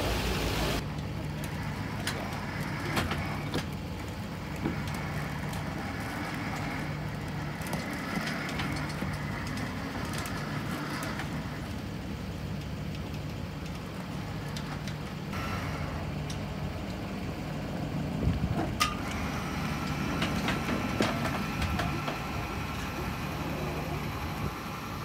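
An engine idling steadily, with a few clicks and knocks over it.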